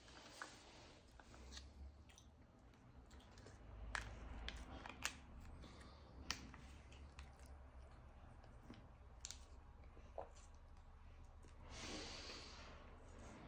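Faint handling of a foil stick pouch of red ginseng extract: a few sharp clicks and crinkles as it is torn open and worked, then a short sucking sound near the end as the contents are squeezed into the mouth.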